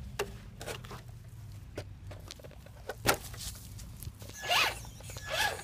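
Traxxas Stampede 4x4 RC truck's electric motor revving in short rising-and-falling bursts about four and a half seconds in, the wheels spinning in loose sand. Before that come a few scattered clicks and knocks, the loudest about three seconds in.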